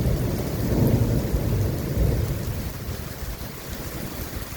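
Thunder rolling in a low rumble, loudest in the first couple of seconds and then dying away.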